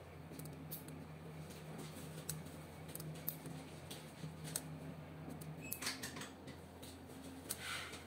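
Faint scattered clicks and ticks from handling at a test bench, with a short scratchy pen-on-paper sound about six seconds in and again near the end, over a low steady hum.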